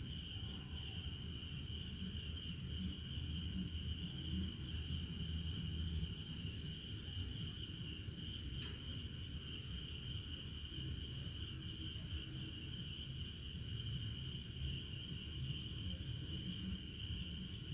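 Crickets chirring steadily in a continuous high-pitched drone over a low background rumble.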